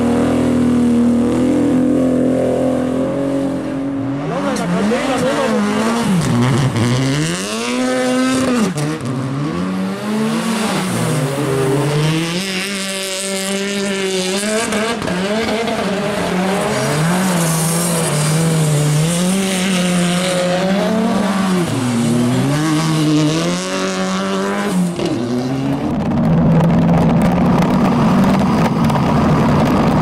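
Rally car engines revving hard and falling back again and again as the cars drift through snowy corners. Near the end the sound changes to a steadier, rougher engine note.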